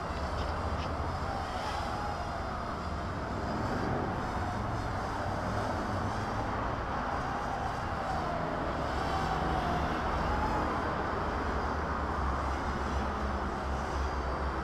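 Small toy quadcopter's motors and propellers whirring in flight, the pitch wavering up and down as the throttle is worked, over a steady low rumble.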